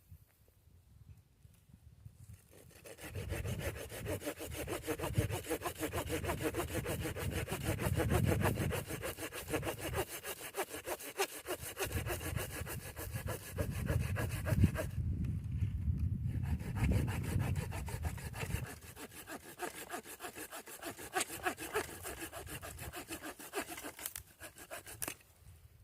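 Hand saw cutting wood in rapid rasping strokes, with one short pause about halfway through.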